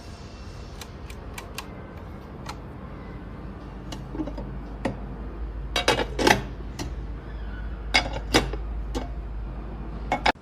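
Hard parts of an electric hot pot and grill being handled: scattered sharp clicks and knocks, with a run of louder clatters about six seconds in and two more about two seconds later, over a low steady hum.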